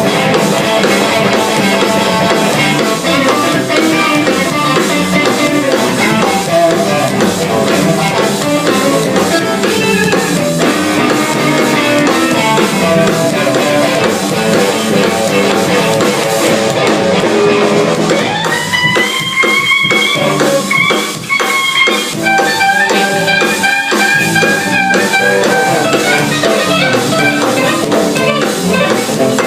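A live band jamming, with guitar over a drum kit. About two-thirds of the way through, a lead note slides up and is held, followed by more sustained lead notes.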